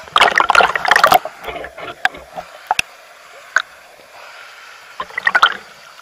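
River water sloshing and splashing around a camera dipped at the water's surface, loudest in the first second and again about five seconds in, with a few sharp clicks between.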